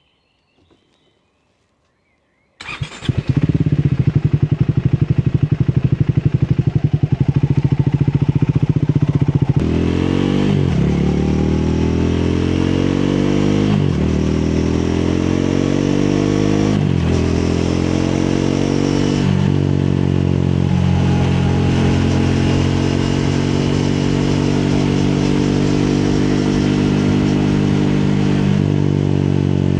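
Triumph Speed 400's single-cylinder engine starts suddenly about two and a half seconds in and idles with a pulsing beat. About ten seconds in it pulls away, the pitch rising and dropping through three upshifts, then it settles into a steady cruise.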